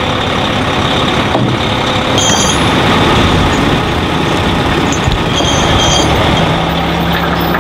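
Heavy-haul truck's diesel engine running steadily, with a deeper steady hum coming in near the end.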